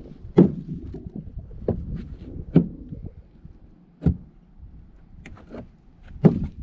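A string of sharp knocks, each with a dull thud, at irregular intervals of about one to two seconds. The loudest come about half a second in, near the middle and near the end.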